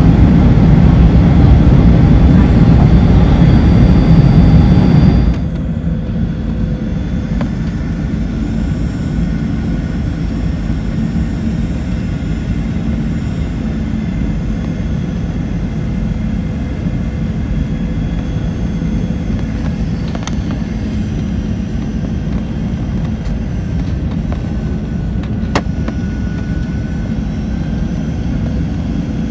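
Airliner cabin noise: a steady rumble of engines and airflow that drops sharply in level about five seconds in, then runs on more quietly, with one sharp click late on.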